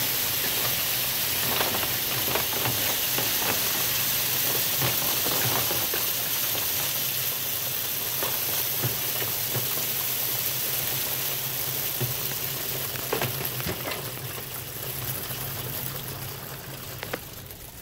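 Grain moving through a working model grain elevator: the bucket leg lifting it and clear plastic spouts pouring it into a bin. It makes a steady hiss with scattered small clicks over a low hum, and fades away in the last few seconds.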